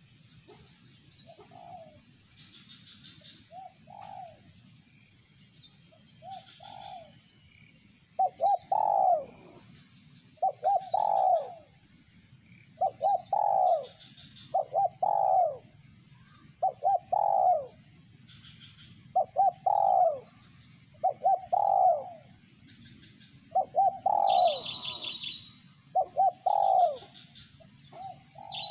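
A dove cooing over and over, likely the decoy dove used to lure wild doves. A few faint short coos come first, then about eight seconds in it sets into loud repeated phrases of falling notes about every one and a half to two seconds. Small birds chirp high above it.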